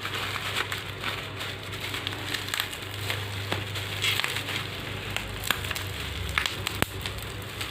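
Plastic packaging being handled and pulled open: crinkling and crackling with scattered sharp clicks.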